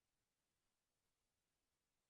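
Near silence: a gap in the music.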